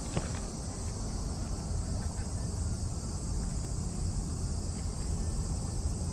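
Steady, high-pitched chorus of insects chirring in the trees, with a low rumble underneath.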